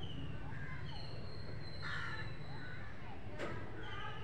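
A crow cawing once, about two seconds in, over a steady low hum, with short high chirps of small birds. A single sharp click comes about three and a half seconds in.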